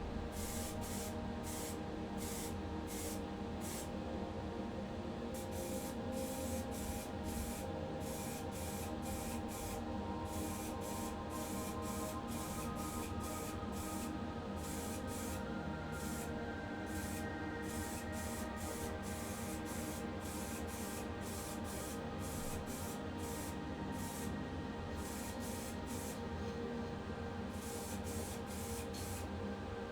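Spray paint hissing onto a small diecast car body in many short bursts with brief pauses between them.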